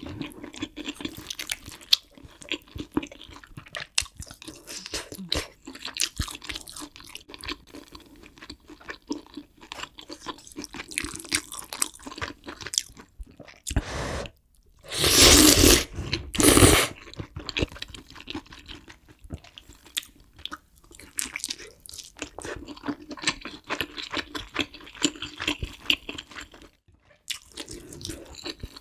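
Close-miked eating: steady chewing and crunching of kimchi stew, with a loud slurp of ramen noodles about halfway through.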